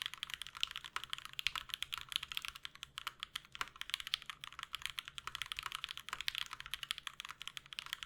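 Continuous typing on a mechanical keyboard with Everglide Aqua King V3 linear switches: a fast, even stream of keystroke clicks and clacks.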